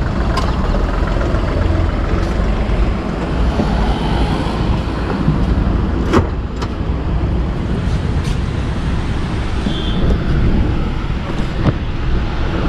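Steady low rumble of a running motor vehicle, with a few short sharp clicks or knocks scattered through it.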